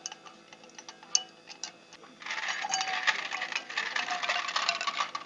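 A spoon clinking a few times against a glass as a drink is stirred, then about two seconds in a dense rattle of ice cubes tipped into the glass, clattering against its sides for about three seconds.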